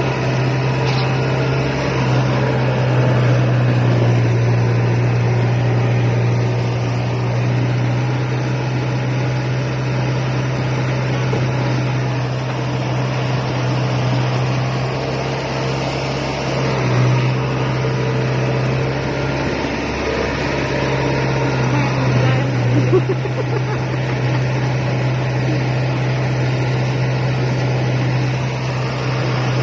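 Rice combine harvester engine running steadily under load, a constant low drone with machinery noise over it, dipping briefly about two-thirds of the way through.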